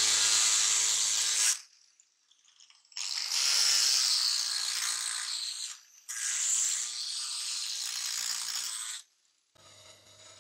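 Electric angle grinder with an abrasive disc grinding the bevel of a leaf-spring steel cleaver blade, in three passes with short pauses between them. Near the end a bench drill press runs much more quietly.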